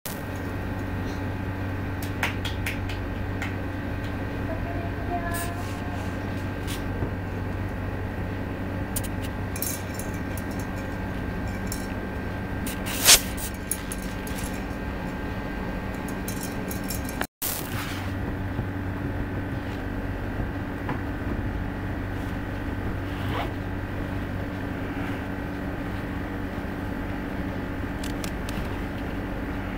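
Steady low hum with scattered light knocks of small plastic play balls and toys, and one sharper knock about 13 seconds in.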